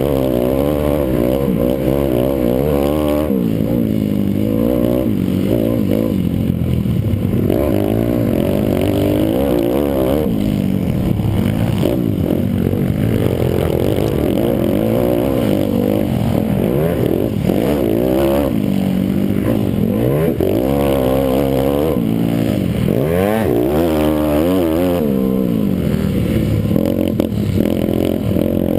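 Pit bike's single-cylinder four-stroke engine, heard close from on board, revving up and dropping back over and over as it is ridden hard round a minicross track.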